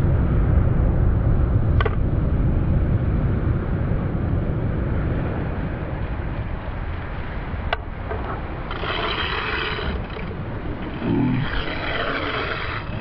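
Strong wind buffeting the camera microphone over shore surf, a steady low rumble, with two sharp clicks about two and eight seconds in.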